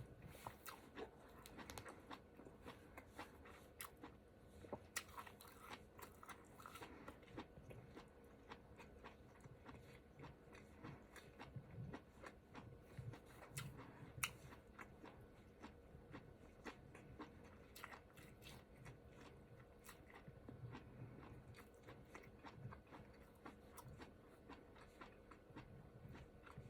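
Faint, close-miked chewing and biting of a ramen hotpot, with many small mouth clicks throughout.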